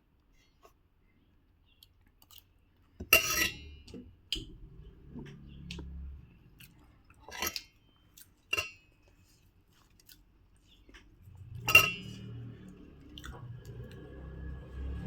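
Close-miked chewing of puri with achar and tarakari, broken by about four sharp clinks of dishes or cutlery, the loudest near the end.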